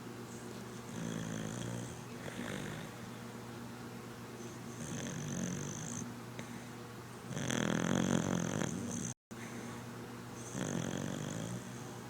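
Red cocker spaniel snoring in its sleep, five snores a few seconds apart, the loudest about eight seconds in.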